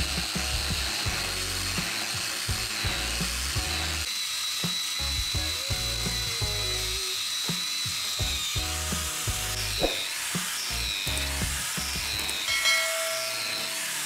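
Angle grinder with a sanding pad running against a wooden knife handle, a steady high whine that dips in pitch and recovers several times in the second half, over background music.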